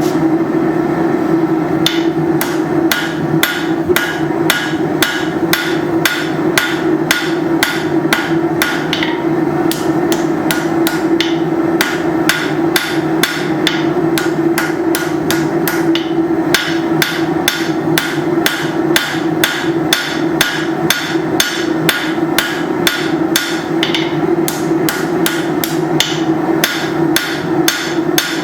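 Hammer striking hot steel bar stock on an anvil at about three blows a second, drawing the bar out into a taper, with a few short pauses. A steady low hum runs underneath.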